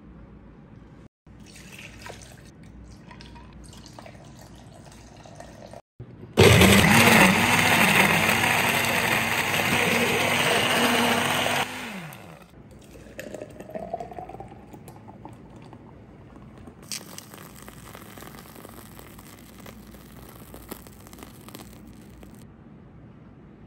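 Countertop blender crushing ice with liquid: the motor starts abruptly about a third of the way in, its pitch wavering at first and then running loud and steady for about five seconds before winding down and stopping. Quieter kitchen handling sounds before and after.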